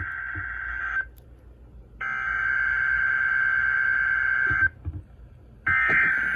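Emergency Alert System SAME header from a weather radio: harsh, buzzing digital data bursts. One burst ends about a second in, a second runs for just under three seconds, and a third starts near the end, each about a second apart. These bursts are the coded start of a National Weather Service alert, here a severe thunderstorm watch.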